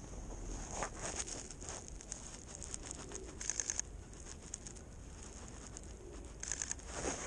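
Faint outdoor ambience with a bird giving a short, rapid, high trill twice, about three and a half seconds in and near the end, among soft scattered clicks and rustling.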